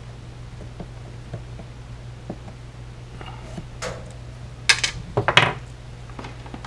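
Small metal workshop items clattering on a wooden workbench as pulled fret wire and fret-pulling nippers are put down: a few sharp clicks and rattles about four to five and a half seconds in, over a steady low hum.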